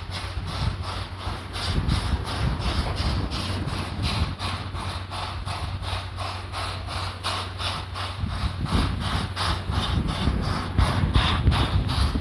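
Level crossing alarm ringing its even, rapid strokes, about three a second, over a steady low hum.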